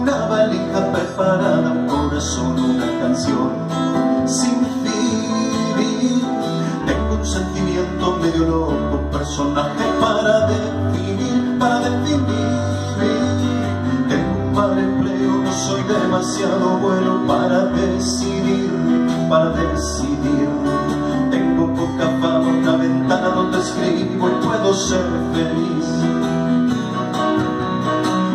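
Live acoustic rock song: a steel-string acoustic guitar strummed alongside a stage keyboard on a piano sound, with low bass notes held under it, and a man singing in Spanish.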